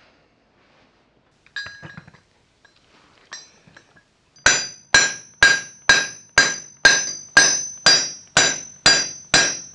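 Steady hammer blows on metal, a little over two a second from about four and a half seconds in, each with a bright ring, driving a part home into a Series 1 Land Rover's front-axle swivel ball. A couple of light metal clinks come before the hammering starts.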